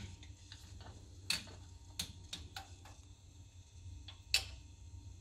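Light metal clicks and clinks of washers and a bolt being handled and fitted into a shock mounting bracket: a scattering of single taps, the sharpest about four seconds in.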